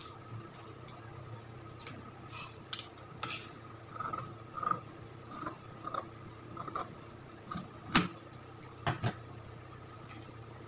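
Scissors cutting through cloth on a table: scattered crisp snips and clicks, with two sharper clicks late on, over a faint steady hum.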